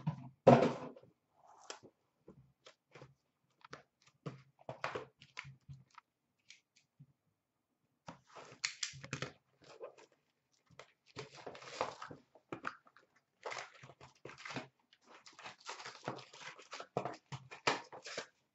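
Cardboard boxes being handled: loud knocks and scrapes as sealed hockey-card hobby boxes are pulled from a cardboard shipping case and stacked, then from about halfway on, irregular tearing, rustling and clicking as a box's packaging is torn open.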